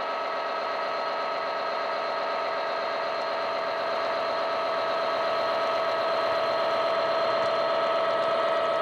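ESU's free Class 66 DCC sound file playing through an OO-gauge model locomotive's speaker: a diesel engine running with a steady, even beat and a steady tone over it, getting gradually louder as the model approaches.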